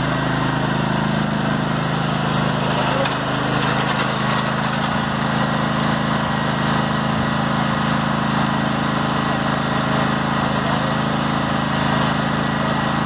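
Husqvarna riding lawn mower engine running steadily, an even hum with no changes in speed.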